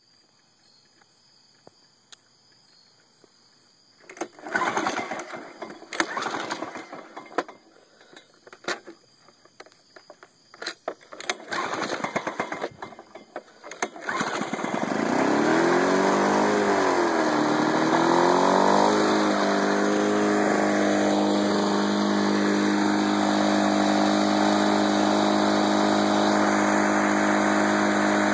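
Lawn-Boy lawn mower engine being started: a string of irregular knocks and rattles, then about halfway through the engine catches, its pitch rising and wavering for a few seconds before it settles into steady running.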